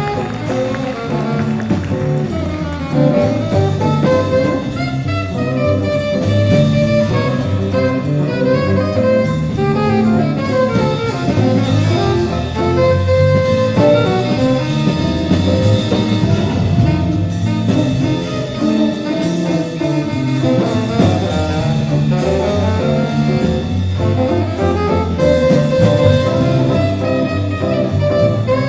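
Student jazz ensemble playing live: horns over drum kit and a moving bass line.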